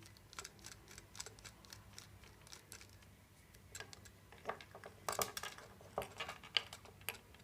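Faint, scattered light clicks and taps of a small screwdriver in a screw head and on the plastic casing of a phone handset as a screw is worked out, with a denser run of clicks about five to seven seconds in.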